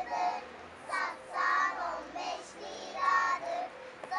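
A group of young children singing a circle-game chant in short phrases, about one a second.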